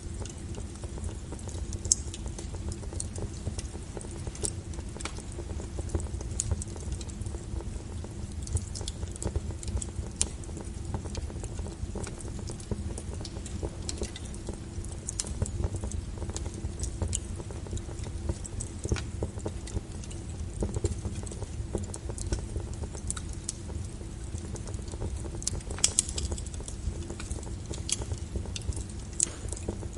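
Wood fire burning: irregular sharp crackles and pops over a steady low rumble of flames, with the loudest pops about two seconds in and near the end.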